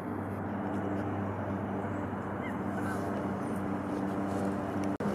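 A steady low engine hum over outdoor background noise, with a few faint short chirps partway through.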